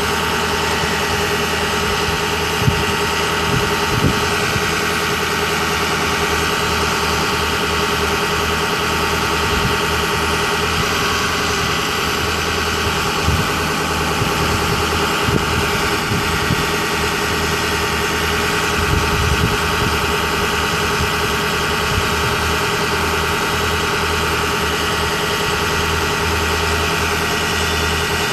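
A Ford 6.0L V8 turbo diesel idling steadily, powering the bucket truck's Altec boom hydraulics while the boom is raised. A steady hum with several steady tones, broken by a few soft low thumps.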